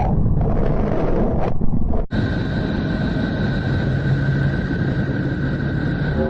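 Deep, noisy rumbling drone of the kind played as a planet's "space sound" recording. About two seconds in it cuts to a second rumbling drone with steady high tones running through it.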